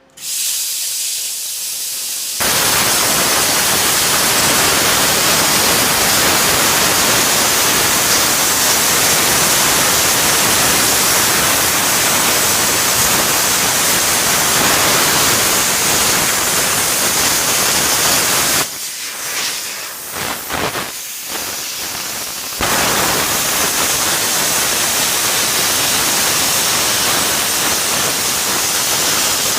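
Plasma cutter cutting through the rusted steel of a tractor wheel rim: a loud, steady hiss that starts suddenly, thinner and higher for the first couple of seconds before it fills out. It drops and sputters for a few seconds about two-thirds of the way through, then carries on steady.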